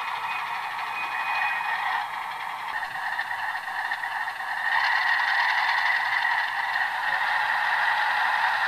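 Sound-equipped HO-scale model ALCo diesel locomotive playing its onboard prime-mover sound as it pulls a short train: a steady diesel engine rumble from the loco's small speaker, without deep bass. About five seconds in it grows louder and brighter, as if notching up the throttle.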